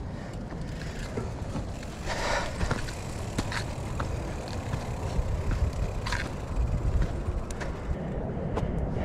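Mountain bike riding down a dirt trail: a steady low rumble of wind and tyre noise, with scattered clicks and rattles from the bike over bumps and a couple of brief hissing scrapes.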